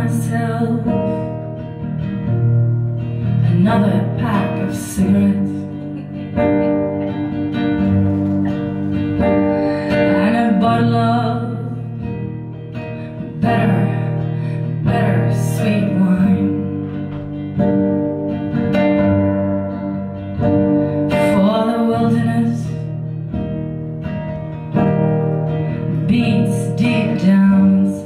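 Live acoustic song: a woman singing to her own acoustic guitar, the guitar played steadily under the vocal line.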